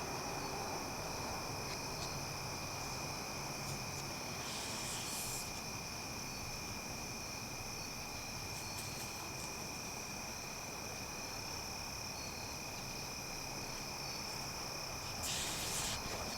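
Evening chorus of crickets and other insects, a steady high-pitched trilling that holds unchanged throughout. Two brief soft hissing rustles stand out above it, one about four and a half seconds in and one near the end.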